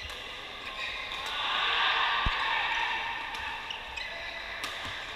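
Badminton being played in a large echoing sports hall: several sharp racket hits on the shuttlecock and shoe squeaks on the court floor, over a busy background of play on other courts that swells in the middle.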